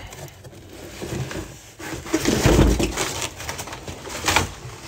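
Cardboard box and plastic shrink-wrap being handled as a wrapped truck visor is pulled out: irregular crinkling and scraping, with a louder scuffing stretch about halfway through.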